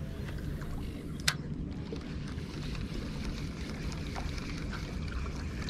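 Steady low wind rumble on the microphone with water noise from the shoreline, and one sharp click about a second in, typical of a spinning reel's bail arm snapping shut after a cast.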